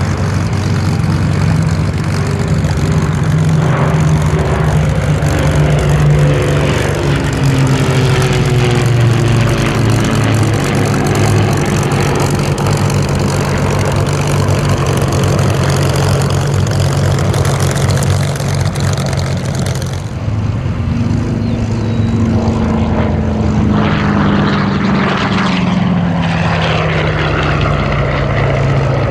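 Piston-engined propeller warbirds flying past, a loud steady engine drone whose pitch falls as each pass goes by. About two thirds of the way in the sound changes abruptly and another pass follows, its pitch falling again.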